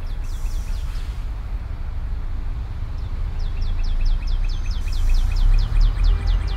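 A rapid run of short, high-pitched, falling chirps, about five or six a second, over a steady deep rumble. The chirps stop about a second in and start again after about three and a half seconds.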